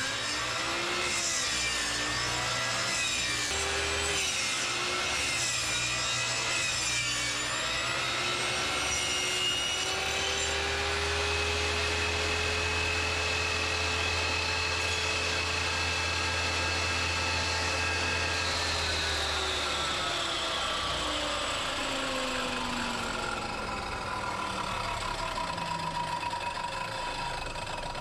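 Table saw ripping a board lengthwise against its fence, the motor's pitch dipping and wavering under load through the first several seconds. It then runs freely at a steady pitch and, after being switched off about two thirds of the way in, winds down with a falling whine. A steady hum continues near the end.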